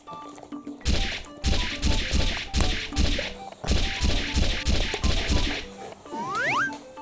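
A plastic pudding cup knocking and scraping in quick repeated strokes, about two or three a second, as dogs lick it out and paw at it. Faint background music runs underneath, and near the end there is a short rising whistle-like glide.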